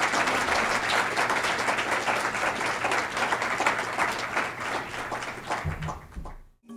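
An audience applauding with many hands clapping at the end of a talk. The applause dies away and cuts off just before the end.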